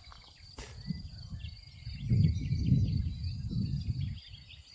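Outdoor ambience with gusts of wind buffeting the microphone, heaviest from about two seconds in, over a steady high insect buzz and faint bird chirps.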